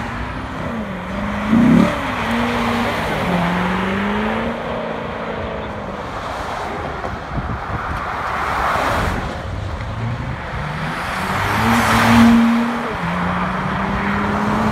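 Sports cars accelerating hard away along a highway: a Chevrolet Corvette's V8 revving up through the gears with a brief louder burst about two seconds in, then a Nissan GT-R pulling out and accelerating away. Road and tyre noise from passing traffic swells twice.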